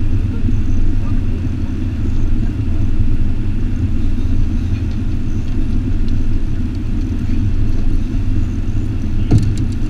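Boat's outboard motor running at idle, a steady low rumble that does not change, with a brief knock about nine seconds in.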